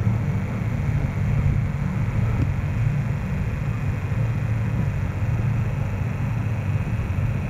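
Steady low engine drone that holds an even pitch.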